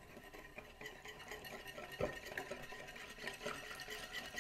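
Water poured from a small glass measuring cup into a glass bowl of dry seasoning and cornstarch, with a wire whisk stirring against the glass; faint, with a light tap about two seconds in.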